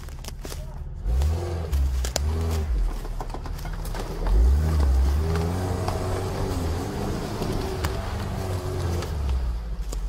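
Lada Niva's engine revving hard under load in surges as the 4x4 claws its way up out of a muddy creek bed: a burst about a second in, then a longer, louder pull from about four seconds in that eases near the end.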